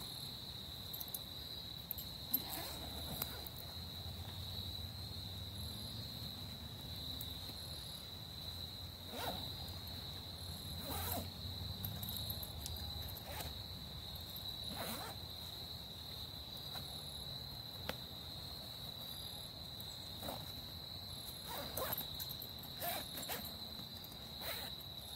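Crickets trilling, one steady high-pitched note that never lets up, with a few short rustles and light knocks scattered through.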